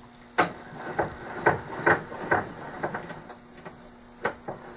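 Light knocks and clicks as an aluminum tube is fitted into a wooden jig block and a bench vise is worked, about eight sharp taps roughly half a second apart.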